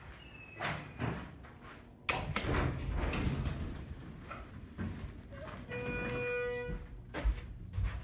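Hydraulic elevator's center-opening doors, a Schindler modernization, opening: a clunk about two seconds in, then the noise of the doors sliding. Later a steady electronic tone sounds for about a second, and a few knocks follow near the end.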